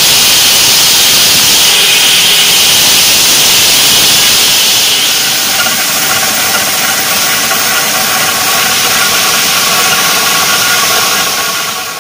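Motor-driven stone saw and grinding wheel cutting and shaping river stone under a water spray: a loud, steady, hissing grind. About five seconds in the hiss eases and a steadier machine hum with a few held tones comes through. It fades out near the end.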